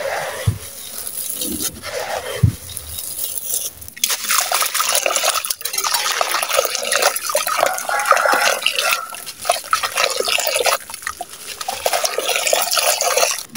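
A dry sand-cement block being broken and crumbled by hand: gritty crunching and crackling with grains trickling down. The first few seconds are quieter, with a few soft thuds, and dense crunching starts about four seconds in. The sound cuts off suddenly near the end.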